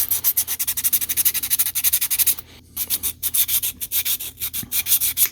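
220-grit sandpaper rubbed by hand over a rusted, pitted metal typewriter part in quick back-and-forth strokes, about ten a second, with a brief pause about halfway through.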